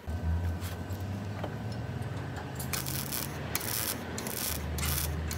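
Arc welder tacking a steel patch panel onto a rusted wheel arch: a steady low electrical hum, with short crackling bursts of the arc, one after another, through the second half.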